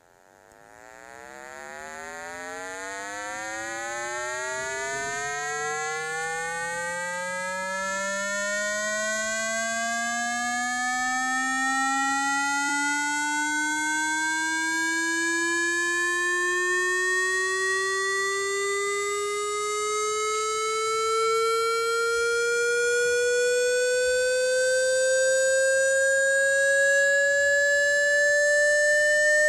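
Synthetic speaker-cleaning tone, buzzy with many overtones, gliding slowly and steadily upward in pitch from low to mid. It fades in over the first few seconds. It is played through a phone's speaker so the vibration pushes water out.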